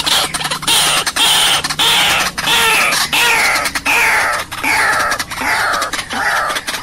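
White-breasted waterhens giving loud, harsh calls over and over, about two a second, each call sliding down in pitch; used as a lure call to draw in wild waterhens.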